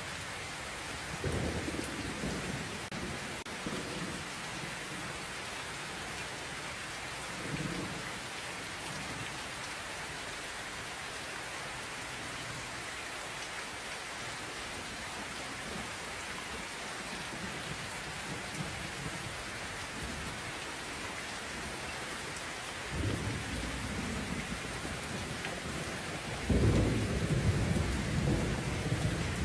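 Steady rain falling, with low rolls of thunder now and then; the loudest, longest roll comes near the end.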